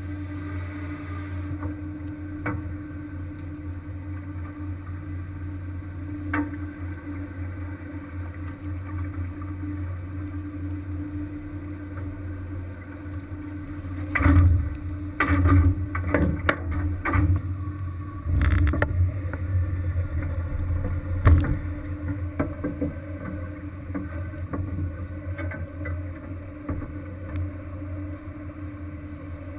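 Fishing boat's engine running with a steady low drone. About halfway through comes a run of loud clanks and knocks lasting several seconds, then the drone carries on.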